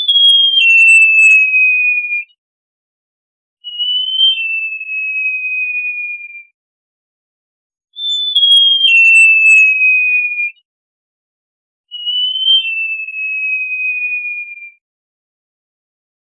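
Great jacamar singing: four long, clear whistles, each two to three seconds long, about four seconds apart. Each starts high with a short step or lift in pitch, then slides slowly downward.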